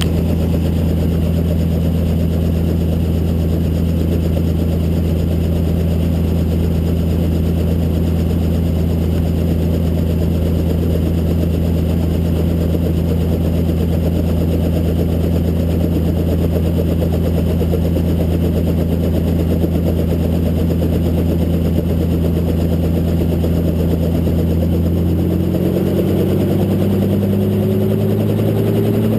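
Helicopter engine and rotor running with a loud, steady low drone. About 25 seconds in the pitch shifts and begins to rise slowly.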